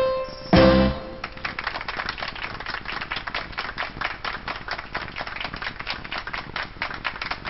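Electronic sound-machine effects: a brief ringing tone, then a short loud low-pitched tone about half a second in, followed by a rapid, steady run of clicks several times a second.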